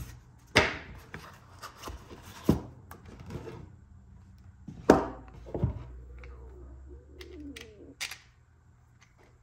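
Unboxing and handling of a spinning reel and its packaging: a foam insert pulled from a cardboard box and the reel's handle lifted out and fitted to the reel, with rustling and several sharp knocks, the loudest about five seconds in.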